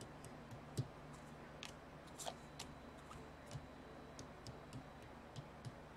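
Exploding Kittens playing cards being dealt one by one onto a wooden desk: faint, irregular light taps and flicks as each card is laid down.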